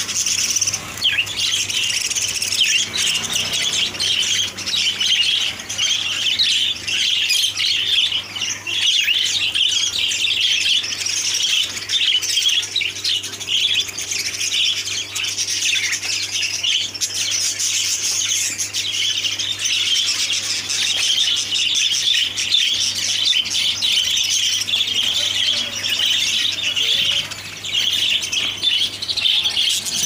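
A flock of caged Gouldian finches calling, many high chirps and calls overlapping with no break.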